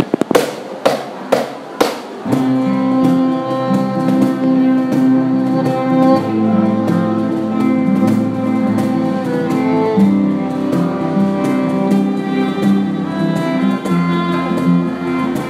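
Instrumental band intro: about five sharp accented hits in the first two seconds, then a violin playing a sustained bowed melody over acoustic and electric guitar, with a light beat tapped on a cajón.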